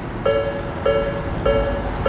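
Japanese railroad crossing warning bell ringing, an electronic two-tone chime struck over and over, about one and a half strikes a second; three strikes fall in these two seconds, each a short held ring.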